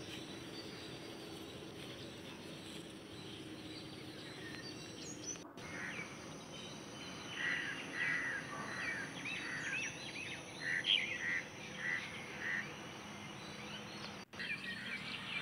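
Birds chirping: a run of short, repeated high calls starting about a third of the way in and lasting several seconds, over a faint steady outdoor background.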